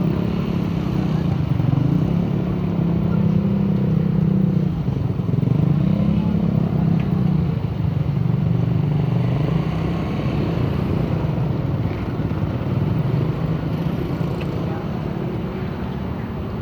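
Excavator's diesel engine running under working load, its note dipping and rising as the hydraulics work.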